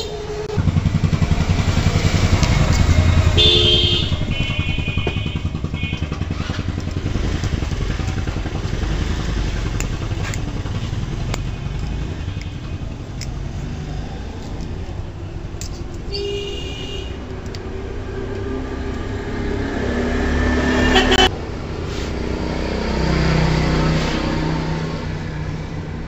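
Motor vehicle engine running, swelling and easing, with short horn toots about three seconds in and again about sixteen seconds in.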